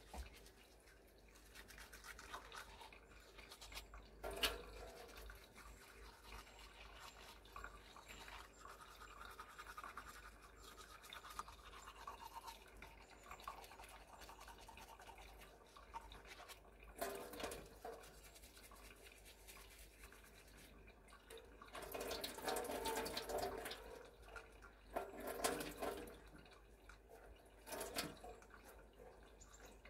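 Teeth being brushed with a toothbrush: a continuous scratchy scrubbing that comes in several louder spells in the second half.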